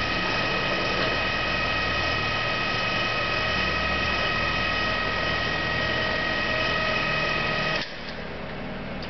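Emco Maximat V10 combination lathe running under power, spindle turning with the power feed engaged: a steady gear whine over a low hum. It cuts off suddenly about eight seconds in, leaving a fainter hum.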